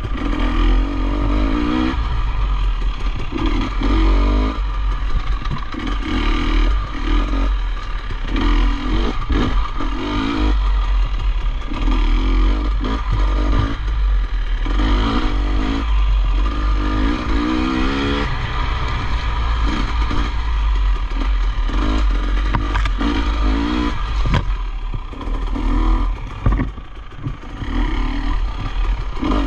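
Off-road motorcycle engine revving in repeated short bursts, its pitch climbing and dropping again and again, with frequent knocks and clatter from the bike working over rough ground and a heavy low rumble underneath.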